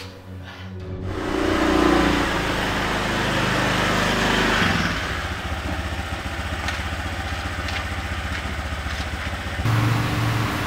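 Motorcycle engine running: it comes up loud about a second in, then settles into a steady idle with even, rapid firing pulses, and cuts off sharply near the end.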